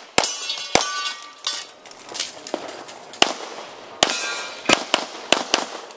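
Rapid pistol shots from an Open-division competition handgun firing a stage, about ten shots in irregular strings with short pauses between them. Some shots are followed by a brief metallic ring.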